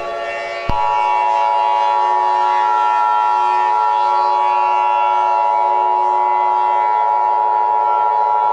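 Emergency Alert System attention signal: a harsh, steady two-tone alarm that starts about a second in and holds unbroken, over a continuous low drone of several steady pitches.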